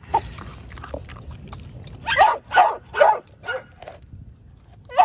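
A dog barks four times in quick succession, short calls that each fall in pitch.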